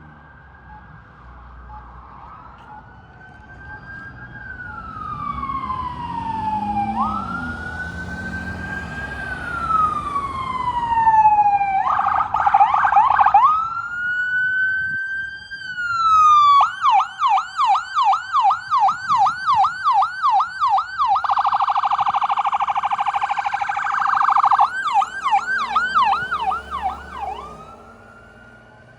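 Electronic siren of a responding fire department vehicle, switching between a slow rising-and-falling wail and a fast yelp, with a few seconds of a steady rapid warble in the middle. It grows louder as it approaches and fades away near the end.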